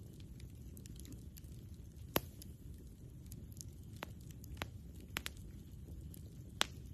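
Campfire crackling: burning wood gives irregular sharp pops and snaps, two louder ones about two seconds in and near the end, over a steady low rumble.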